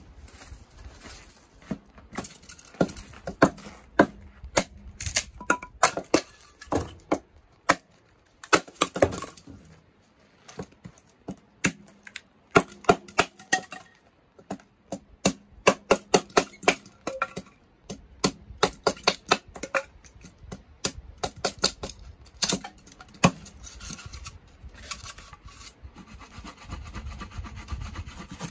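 A hatchet working dry firewood on a wooden chopping block: quick runs of sharp knocks and cracks as the blade bites and splits kindling, in bursts with short pauses. Near the end comes a denser run of scraping strokes as the blade shaves curls off a stick.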